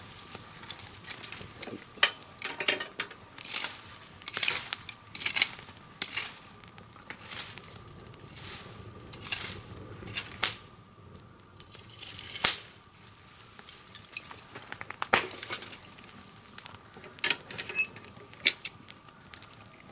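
Irregular clicks, clinks and clatter of objects being handled, with a faint steady high tone throughout.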